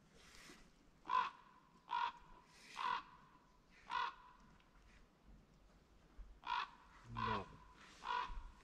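A crow cawing repeatedly, one harsh call about every second: a run of four, a pause of a couple of seconds, then three more.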